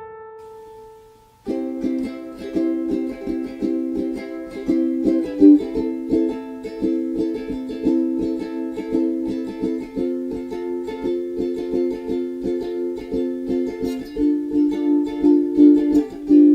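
A held piano note dying away, then about a second and a half in a ukulele starts strumming a steady, quick chord pattern as the intro of a song.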